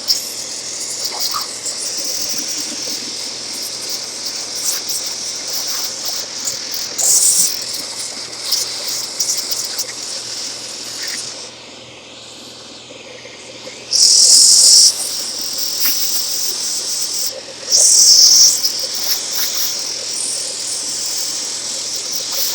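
Steady hiss of vacuum suction and mild compressed air blowing dirt and iron filings out of a car radio chassis, with three louder blasts of air, the longest about a second.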